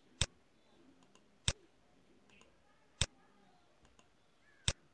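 Computer mouse button clicking four times, about one and a half seconds apart, each click placing a point of a slab outline in drawing software.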